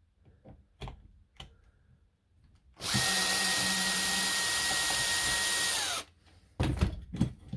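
A cordless power drill/driver runs steadily for about three seconds, then winds down and stops, with small clicks of handling before it and a few knocks of parts after it.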